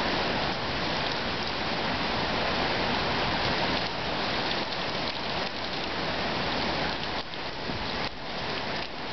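Heavy wind-driven rain from a hurricane feeder band pouring down and pelting the ground and houses in a steady hiss, easing slightly near the end.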